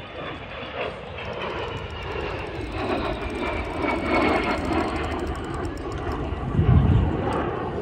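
A de Havilland Vampire jet passing, its centrifugal-flow Goblin engine giving a rushing roar with a faint whine that slowly falls in pitch. The noise grows louder and is heaviest near the end.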